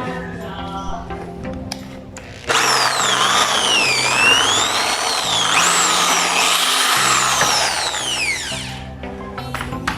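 Power drill boring a hole, its motor whine falling and rising in pitch as the speed changes, starting about two and a half seconds in and dying away about a second before the end, over background music.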